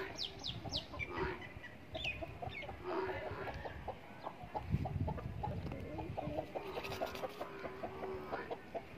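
Chickens clucking: a rooster and hen making rapid short clucks with a low wavering trill, after a few quick high falling chirps at the start.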